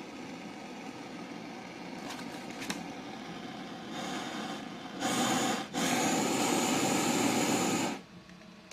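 Gas flame-gun torch head on a gas canister hissing steadily, with two short clicks about two seconds in. From about five seconds the flame hisses much louder, breaks off for an instant, then stops abruptly about eight seconds in as the valve is turned off.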